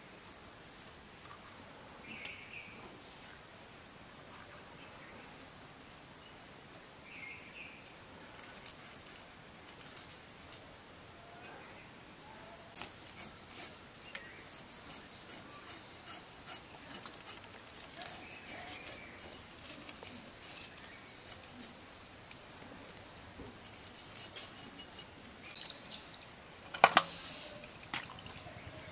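Quiet rural outdoor ambience: a steady thin high-pitched whine like insects, a few short bird chirps and scattered small clicks of handling, with one sharp knock near the end.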